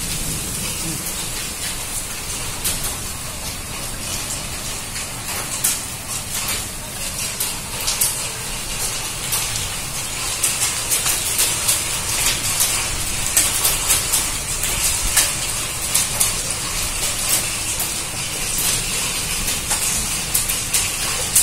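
Heavy hailstorm: a steady hiss of downpour with many sharp ticks of hailstones striking hard surfaces, the ticks coming thicker from about halfway through.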